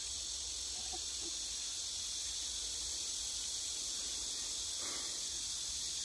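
Steady, high-pitched chorus of insects shrilling without a break.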